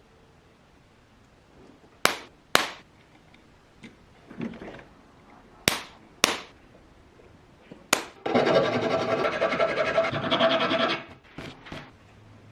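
Workshop tool noise on metal parts: sharp knocks, mostly in pairs, then nearly three seconds of dense, fast rattling and grinding, followed by a few light clicks.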